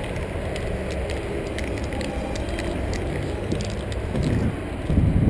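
Aerosol spray paint can hissing as white paint goes onto the wall, with wind rumbling on the camera's microphone and scattered small clicks.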